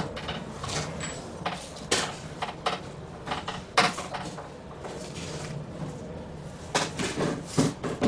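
Irregular clicks and knocks of hands handling a snowblower's plastic and metal parts while checking it over, with the sharpest knock a little under four seconds in and a quick cluster near the end.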